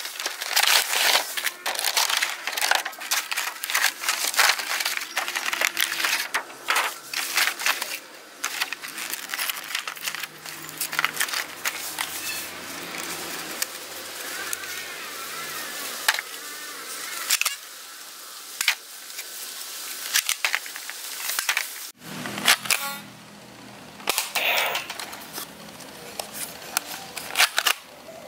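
Handling noise of a toy foam-dart blaster: a long run of plastic clicks, snaps and rustling as it is taken from its packaging and loaded with foam darts.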